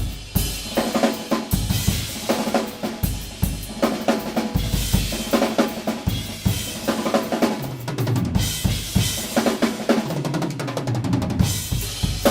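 Drum solo on an acoustic drum kit: bass drum, snare and cymbals played in dense, continuous patterns, with a very fast roll about eleven seconds in.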